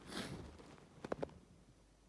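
A person's breathy sniff or exhale, then a few short faint nasal sniffles about a second in.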